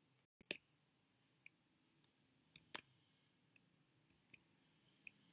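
Near silence with a few faint, scattered clicks, the clearest about half a second in and again a little before the middle.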